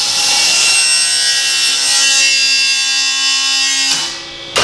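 Table saw blade cutting through a board, a loud high whine with several steady tones. About four seconds in the cut stops and the sound drops, then a single sharp bang near the end as the board kicks back off the blade.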